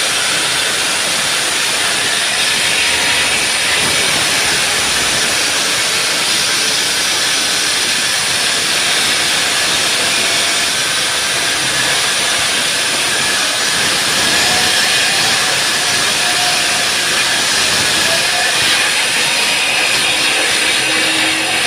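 Concrete saw cutting concrete, a loud, steady grinding hiss with no letup.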